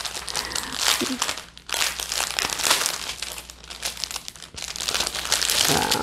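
Plastic packets of diamond-painting drills crinkling and rustling as they are handled, in irregular scrunches.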